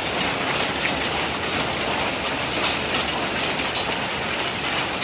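Hail mixed with heavy rain pelting a rooftop: a steady, dense clatter with a few sharper hits.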